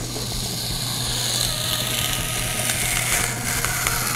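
A printed cardboard insert sliding out of a clear plastic watch display box: a continuous scraping rustle of card against plastic, with a few small clicks.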